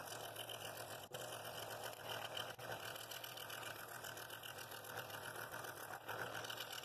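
Scroll saw with a No. 2 blade cutting through thin walnut: a steady reciprocating buzz of the blade in the wood, with a low motor hum underneath.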